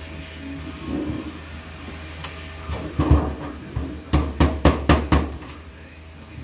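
Galvanized sheet-metal duct stack being handled and then tapped with a hammer: some rattling of the sheet metal, then about six sharp knocks in quick succession past the middle.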